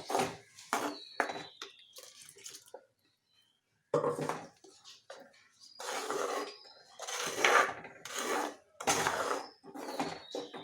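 A spoon stirring a thick curd pachadi in a cooking pot, scraping and clinking against the pot in a run of irregular strokes, some with a faint high squeal, broken by a second of dead silence about three seconds in.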